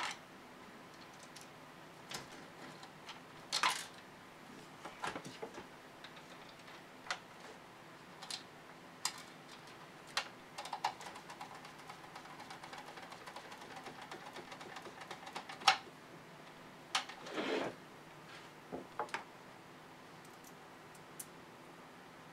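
Scattered clicks, taps and knocks of a screwdriver and hard plastic parts as screws are driven to fasten a 3D-printed snowblower attachment, with a run of quick faint ticks in the middle, over a faint steady hum.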